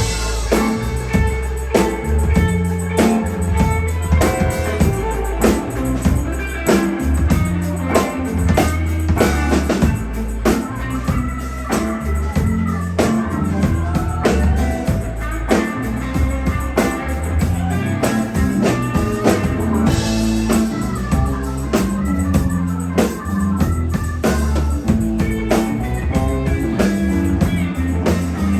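A rock band playing live in an instrumental passage with no singing: guitar and a kit drummer keeping a steady beat over a moving bass line, with sustained organ-like chords.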